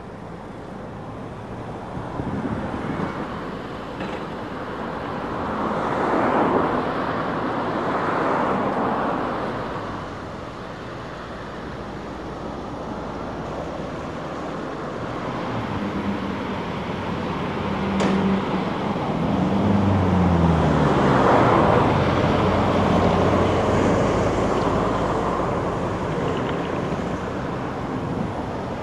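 Diesel engines of a tracked excavator and a site dumper working, revving up and down under load over a steady engine drone. The noise swells louder about six seconds in and again about twenty seconds in.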